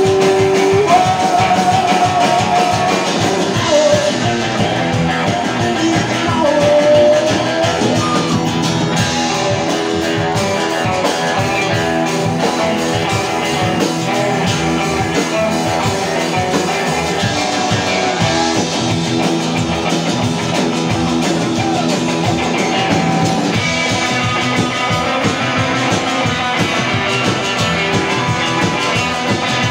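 Live band playing an up-tempo outlaw-country rock tune: acoustic and electric guitars, upright bass and drum kit, with a few held and bent lead notes in the first several seconds.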